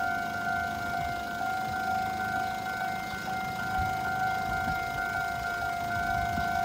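Taiwan Railway level-crossing warning alarm sounding: a steady electronic tone at two pitches, over a low rumble.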